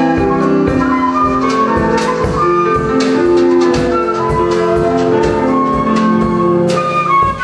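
Transverse flute playing a melody over a drum kit keeping a steady beat and a keyboard piano accompaniment, a live trio.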